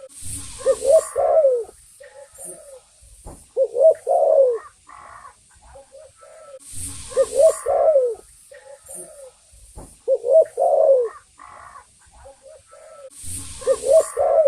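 Spotted dove cooing: a short phrase of a few low coos, repeated about every three seconds, five times.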